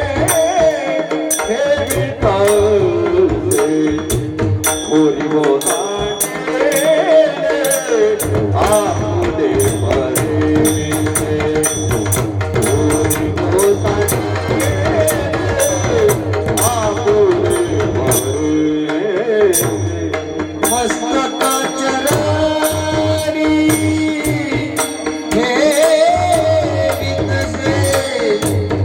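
Devotional kirtan singing: a voice sings a gliding melody over a steady harmonium-like drone, with hand-drum strokes and a regular metallic clicking beat of small cymbals.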